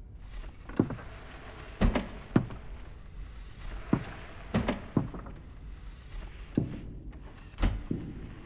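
About nine sharp thumps at irregular intervals, over a steady hiss and low rumble.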